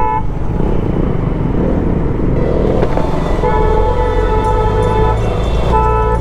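Road traffic rumbling past, with vehicle horns honking: a short honk at the start, a long one from about three and a half to five seconds, and another short one near the end.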